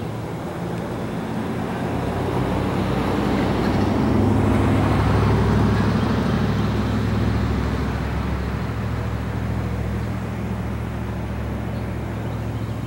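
A road vehicle driving past: its engine rumble builds to a peak about five seconds in, then fades away.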